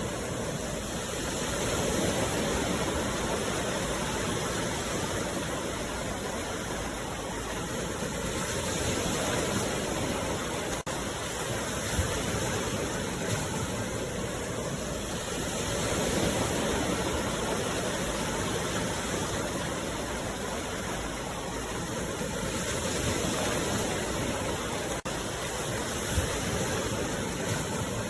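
Sea waves washing in, a continuous rush of surf that swells and eases about every seven seconds.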